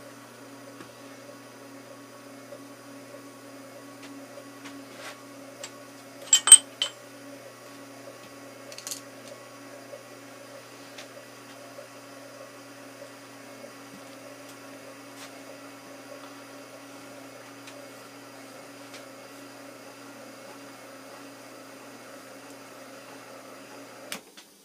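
Grizzly G0755 mill/drill running steadily, a motor and spindle hum with a few sharp metallic clinks about six seconds in. It is switched off near the end, and the hum stops abruptly after a click.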